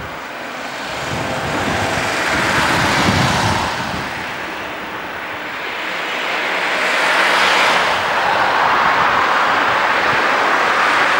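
Diesel rail crane's engine running under load, its noise swelling twice: about two seconds in and again from about seven seconds in.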